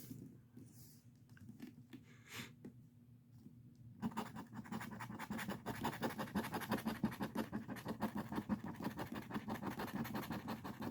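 A scratch-off lottery ticket having its coating scraped off. A few light strokes come first; about four seconds in, it turns to fast, continuous scratching that carries on.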